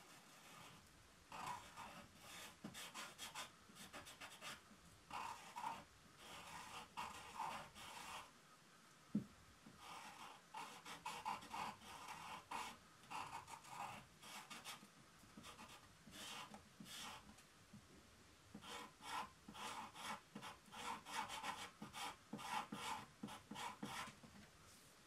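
Quick strokes of a drawing tool scratching and rubbing across paper, in short runs with brief pauses, as an ink sketch is worked over. A single soft knock about nine seconds in.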